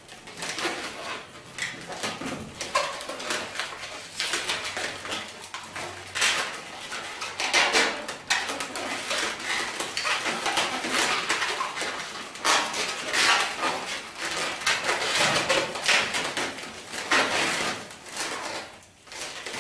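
Inflated 260 latex modelling balloons squeaking and rubbing against each other as they are twisted and locked together by hand, in an irregular string of short squeaks and rasps.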